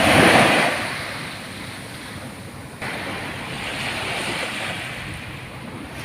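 Ocean waves breaking on a sandy beach: a loud wash in the first second that eases off, then a steady surf wash that builds again toward the end.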